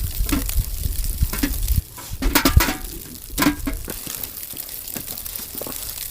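A utensil stirring and scraping in a cooking pan, in a few short clusters, over a steady low rumble that cuts off a little under two seconds in.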